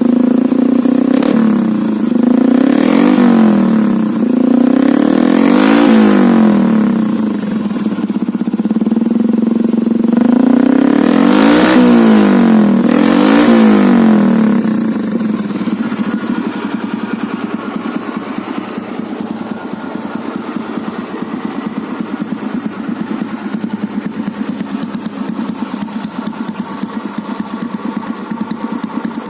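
Honda Kharisma 125's single-cylinder four-stroke engine breathing through an SND 'karatan' aftermarket exhaust, blipped up and back down about five times, then settling to a steady idle about fifteen seconds in.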